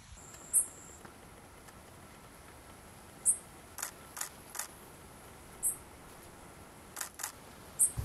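Four short, very high, thin call notes a couple of seconds apart, from a small songbird, over a faint steady hiss, with a few soft clicks in between.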